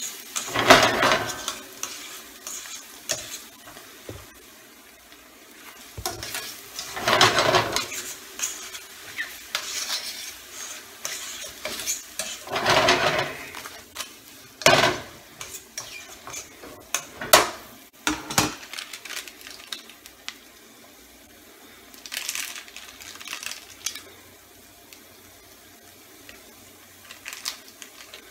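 Sliced pheasant back mushrooms stirred and tossed in a sizzling cream sauce in a stainless steel skillet: several scraping swishes of the utensil through the pan, then a few sharp clicks of metal on the pan, over a steady faint sizzle.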